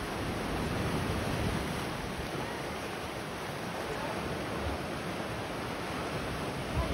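Ocean surf washing against a rocky shoreline: a steady rushing noise.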